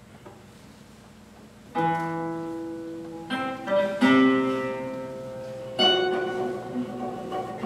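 Guitar quartet playing contemporary classical music: after a brief hush, plucked chords come in about two seconds in, followed by three more sharp chord attacks that ring on.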